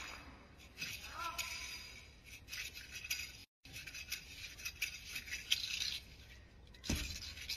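Wushu spear being whirled and snapped through a routine: a string of quick swishes, rattles and sharp clicks from the spear, with a heavier thud on the competition mat near the end.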